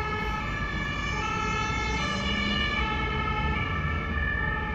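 German two-tone emergency vehicle siren, stepping back and forth between two pitches, over the low rumble of engines and traffic.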